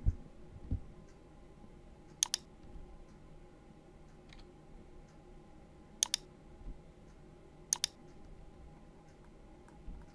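Computer mouse clicks and keyboard key presses: sharp clicks in close pairs, three times, with a few fainter ticks between, over a faint steady hum.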